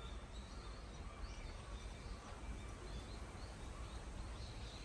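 Outdoor ambience: small birds chirping, with short high calls repeating every second or so over a low steady rumble.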